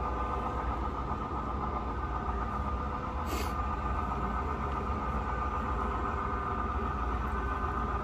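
Model diesel locomotives running slowly, with a steady engine drone and a short hiss about three seconds in.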